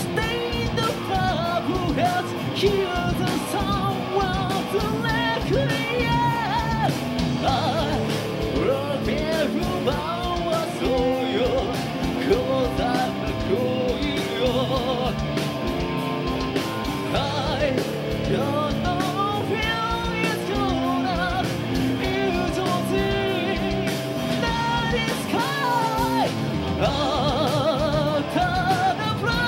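Live metal band performing: a man singing over electric guitars, bass and drums, the music dense and unbroken.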